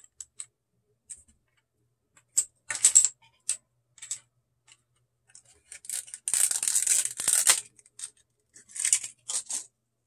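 Light clicks and taps of small hardware being handled, then a longer crinkling, clicking rustle of a clear plastic clamshell case being opened, loudest about six to seven and a half seconds in, with a few more short clicks near the end.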